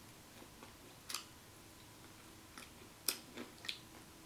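Close-up eating sounds of spicy Korean fried chicken being chewed: a few scattered crisp clicks and crunches, the loudest a little after the middle.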